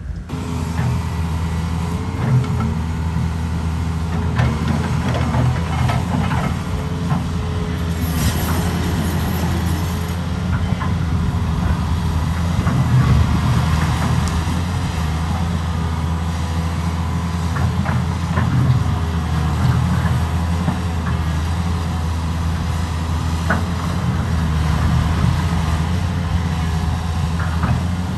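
Heavy diesel construction machinery running steadily, its engine deep and constant, with scattered metallic clanks and knocks and a brief hiss about eight seconds in.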